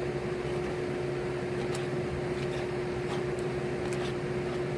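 Electric fans running: a steady hum with one constant tone.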